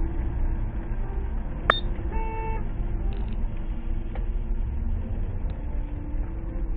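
Steady low rumble of a car driving, heard from inside the cabin. There is a sharp click a little under two seconds in, and just after it a short electronic beep.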